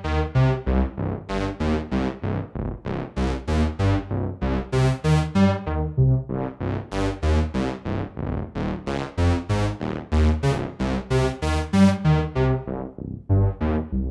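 Sequential Prophet-6 analog polysynth playing a quick run of short, plucky notes at about three or four a second, each dying away fast, with pitches and brightness changing from note to note.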